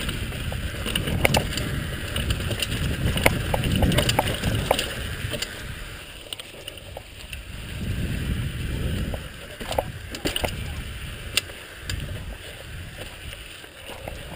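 Mountain bike descending a rocky dirt trail: wind rushing over the microphone and tyres rumbling over dirt, with frequent sharp clicks and rattles from the bike jolting over bumps and rocks. The rumble is heaviest in the first half and eases after about six seconds.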